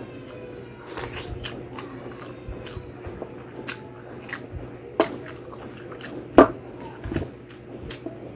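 Wet chewing and mouth clicks of a person eating crispy pata (deep-fried pork knuckle) by hand, with two louder clicks about five and six and a half seconds in.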